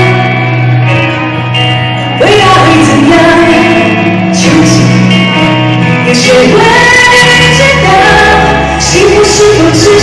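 Live pop concert music: a female singer singing with band accompaniment through the arena's sound system.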